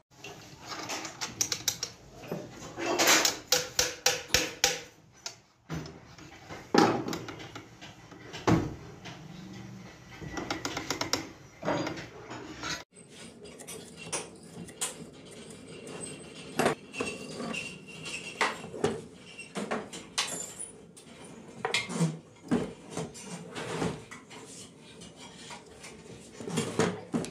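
Metal parts and hand tools clinking and knocking irregularly against a sewing machine head as it is assembled by hand on a workbench.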